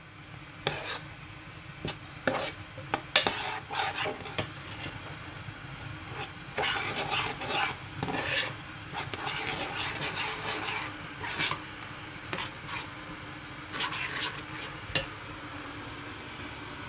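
A spoon stirring ground ogbono into hot palm oil in a steel pot, scraping against the pot in irregular strokes that come in bursts with short pauses. The ogbono is being melted so that it dissolves into the oil.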